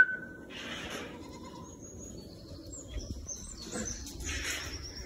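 Domestic goats bleating, answering their keeper. A held whistle ends about half a second in, and faint high chirps sound behind the goats.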